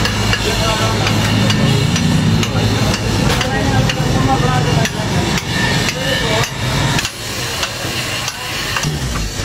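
Hammer striking metal, repeated blows about twice a second, over a low steady hum that weakens about halfway through.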